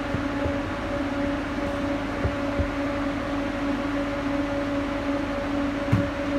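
A steady machine hum with two steady tones under it, and a few short knocks about two seconds in and again near the end as a cargo ratchet strap and its hook are handled against the trailer's metal E-track rail.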